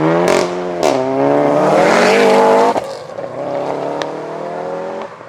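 Subaru Impreza flat-four boxer engine rumbling and accelerating, its pitch climbing for a couple of seconds. About halfway it drops back to a steadier, lower note, then cuts off sharply near the end.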